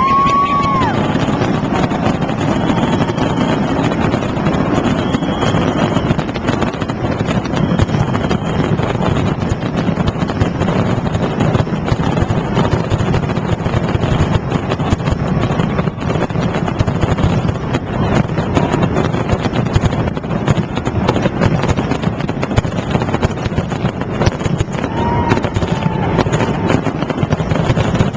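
Fireworks display with a continuous din of crackling and bangs mixed with crowd noise and wind buffeting the microphone. Brief whistles rise out of it at the start and again about 25 seconds in.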